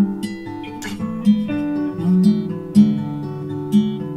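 Background music: acoustic guitar playing plucked notes and a strum.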